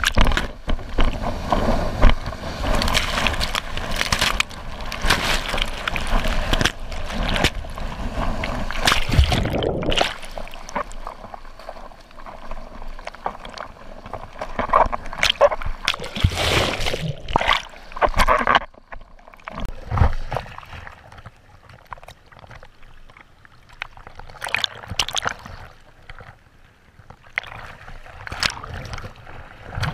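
Sea water splashing and rushing close around a bodyboard and rider. It is loud and continuous for about the first ten seconds while he is in whitewater, then becomes separate, quieter splashes and sloshes as he paddles through choppy water.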